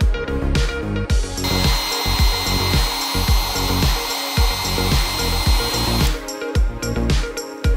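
Electric heat gun blowing steadily for about four and a half seconds, from near the start until about six seconds in, with a thin high whine from its fan, as it shrinks heat-shrink tubing over soldered wire joints. Background electronic music with a steady beat plays throughout.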